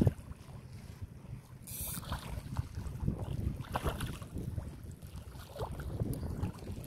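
Wind buffeting the microphone, with several short splashes from a small hooked striped bass thrashing at the water's surface.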